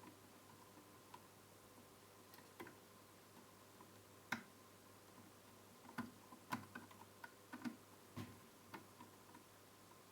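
Sparse, light clicks and knocks of a circuit board being handled and fitted into a TV chassis, bunched in the second half, with one sharper click about four seconds in, over a faint steady hum.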